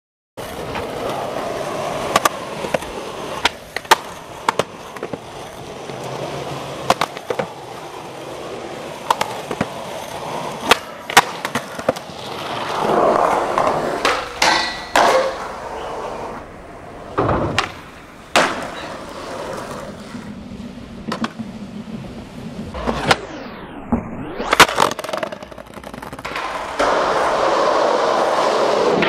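Skateboard wheels rolling over hard pavement, with many sharp clacks of the board striking the ground.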